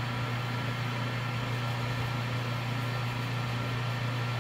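Lathe motor running steadily with a low hum as a paper towel is pressed against the spinning acrylic pen blank to buff off the plastic polish.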